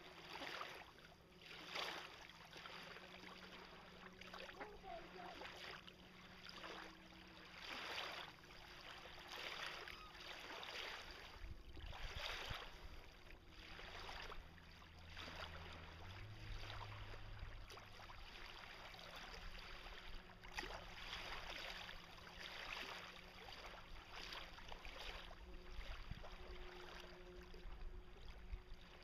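Water lapping and splashing against a floating dock and kayak in soft, irregular washes every second or two, with a faint low steady hum underneath.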